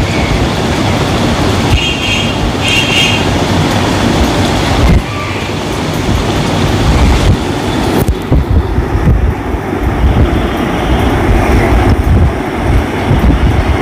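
Loud, steady workshop din, with two short metallic rings about two and three seconds in. The sound thins out about eight seconds in.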